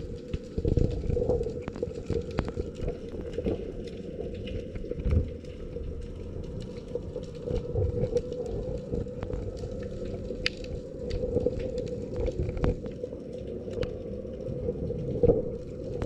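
Underwater ambience picked up by a camera in its housing: a steady low hum with a constant tone, scattered crackling clicks and a few dull low thumps.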